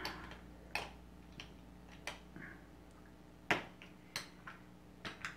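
Plastic Heroclix miniature bases clicking and tapping as they are set down on the game map, about six light, separate clicks, the sharpest about three and a half seconds in.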